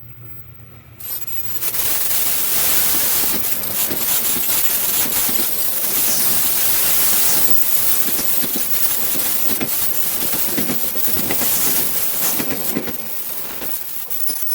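Train passing close by: a loud rushing of wheels on rails with dense clattering. It starts abruptly about a second in and eases off near the end.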